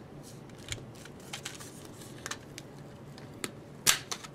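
Small clicks and crinkles of a plastic blister card of mini replacement bulbs being handled and pried open, with a louder cluster of clicks about four seconds in.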